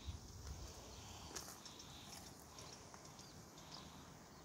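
Near silence: faint outdoor ambience with a brief low rumble just at the start and a few faint scattered clicks.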